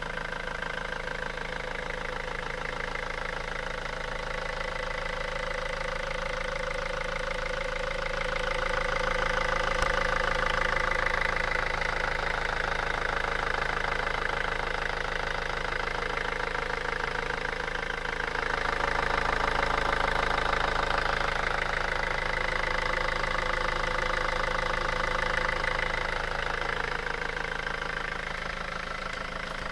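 An engine running steadily, growing louder twice for several seconds at a time.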